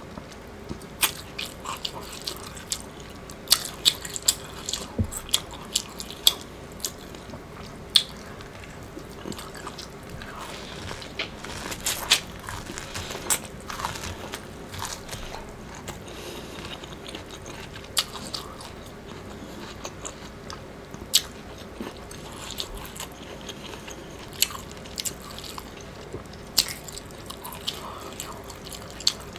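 Biting and chewing Mexican street corn on the cob: irregular sharp crunches as kernels are bitten off the cob, with chewing between bites.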